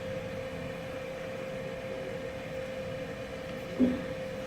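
Steady hum of a fume extraction fan, with one even tone held throughout. A short vocal sound breaks in about four seconds in.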